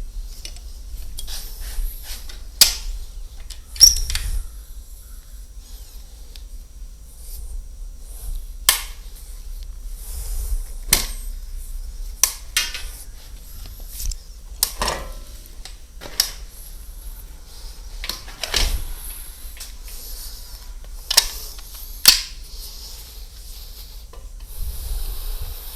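Handling noises: a string of irregular sharp clicks, clinks and knocks, some of them metallic, with light rustling between.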